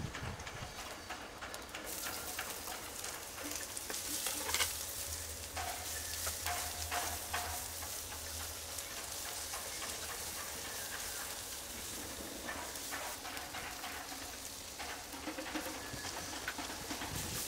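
Chopped onions, curry leaves and bell peppers sizzling in a hot non-stick frying pan, stirred and scraped repeatedly with a slotted spatula.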